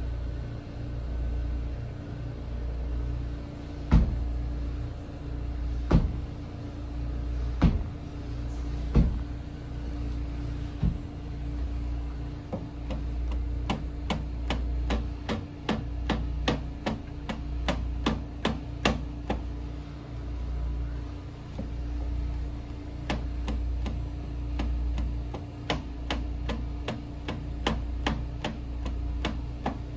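Repeated instep kicks landing on a sheet-metal-clad corner, each a sharp knock. A handful of single strikes come a couple of seconds apart, then quick runs of about three strikes a second with a short break midway, over a steady low hum.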